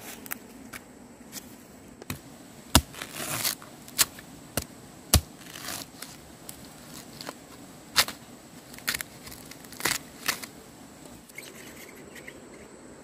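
A metal digging tool striking and prying into soil, roots and dry leaf litter while bamboo shoots are dug out: sharp irregular knocks and cracks, about nine in all, with rustling and snapping of dead leaves and twigs between them.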